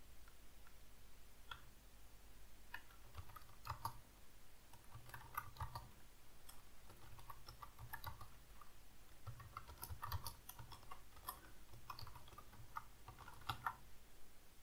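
Faint typing on a computer keyboard: irregular single keystrokes and short runs of clicks.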